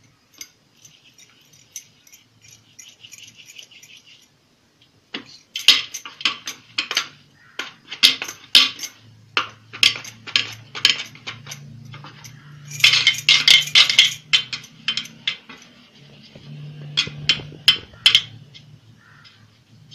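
Glass and metal bangles clinking and jangling on the wrists as hands roll dough into ropes on a steel plate. The clinks come in quick runs, faint at first and louder and denser from about five seconds in. A low steady hum runs underneath from about halfway through.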